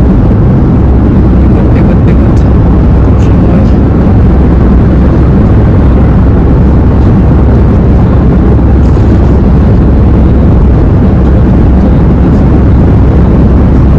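Loud, steady low rumble of road and engine noise inside the cabin of a moving car.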